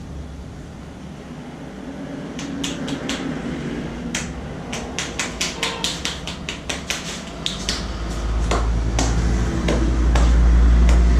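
A barber's hands working quickly over a head massage: a fast run of sharp clicks and slaps, about four a second, starting a couple of seconds in. A loud low rumble builds near the end.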